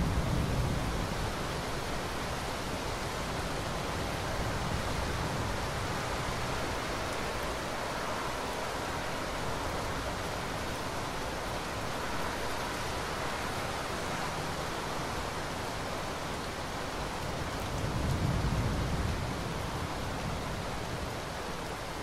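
Steady rain falling during a thunderstorm, with low rumbles of thunder swelling at the start and again, a little longer, near the end.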